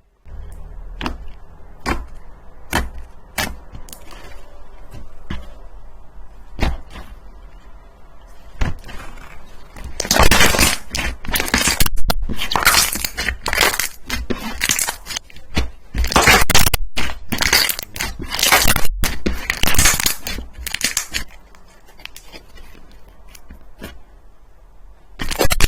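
Slime being pressed and squeezed by hand, giving sharp crackling and popping: scattered clicks at first, then dense, loud crackling for about ten seconds from the middle, which eases off and then comes back near the end.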